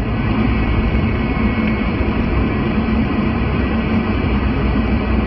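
Steady hiss of a CB radio receiving on upper sideband with no station coming through, over the low rumble of the car driving.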